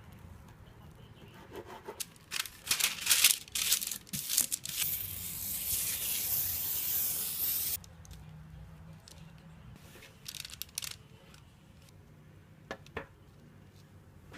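A knife sawing through a log of rolled pizza dough on a bamboo cutting board: a run of rough rasping strokes, then a steady harsh hiss for about three seconds that stops abruptly. Later, a few faint scrapes and a light tap as the dough rolls are set on a parchment-lined baking sheet.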